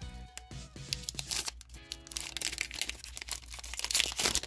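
Crinkling and tearing of a foil trading-card booster pack being opened, loudest near the end, over background music.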